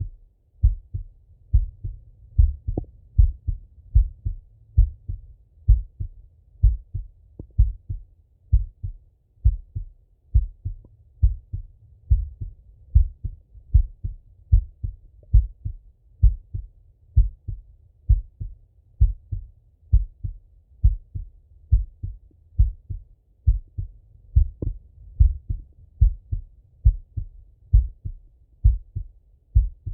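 A man's heartbeat heard through a Littmann stethoscope on the chest: a steady, slow run of dull, low lub-dub thumps.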